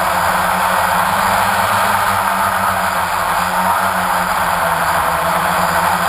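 A multirotor drone's motors and propellers, picked up by the camera riding on it: a steady, loud buzz with a low hum beneath, unchanging in pitch.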